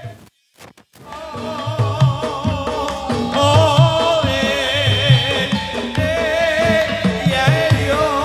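Live ndolalak music over a PA sound system: a steady beat of drums under a wavering melodic line that may be voice. It cuts out for about a second near the start, then resumes.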